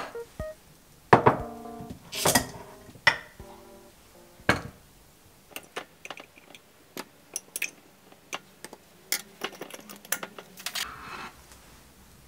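Kitchen handling of a clip-top glass jar and a ceramic plate: a few louder knocks and clanks in the first few seconds, then a run of small light clinks as a utensil works inside the glass jar. A short scraping rustle comes near the end.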